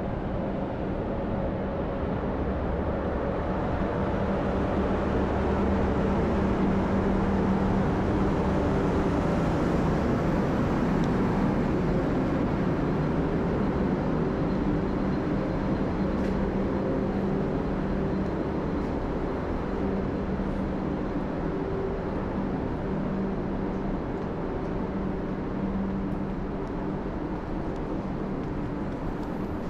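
Steady electrical hum and blower noise from a standing electric passenger train hauled by an HŽ series 1141 locomotive, with a few steady tones in the hum over a low rumble.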